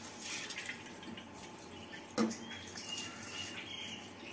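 Handfuls of soaked rice dropped into boiling, bubbling water in a steel pressure cooker, with wet splashing and dripping. A single sharp knock comes about two seconds in, and a ladle starts stirring the pot near the end.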